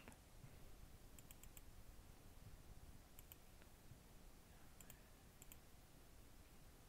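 Faint computer mouse clicks in a few quick groups of two to four, against quiet room tone.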